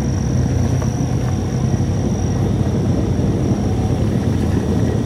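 Motorcycle engine running steadily while riding downhill on a wet road, with road and wind rumble at the onboard camera. A thin, steady high tone sits above it.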